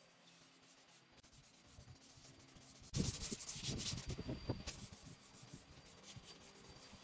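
Sandpaper rubbed by hand back and forth over bare wood. It is faint at first, then louder with quick scratchy strokes for about a second and a half, starting about three seconds in, before dropping back to a faint rub.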